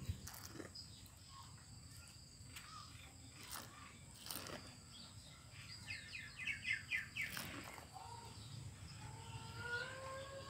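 Quiet outdoor background in which a bird calls a quick run of about six high chirps just past the middle. A few light clicks come from a metal spoon against a plate.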